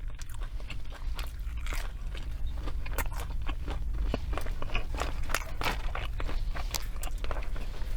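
Close-miked chewing and crunching of crunchy food, a dense run of irregular wet crackles and crunches with no pause.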